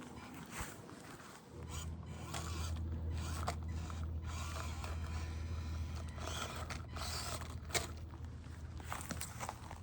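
Axial SCX24 Deadbolt micro RC crawler driving over rough ground: its small brushed motor and gears run while the tyres and chassis scrape and crunch over rock and dirt in short irregular bursts. A steady low hum comes in about a second and a half in.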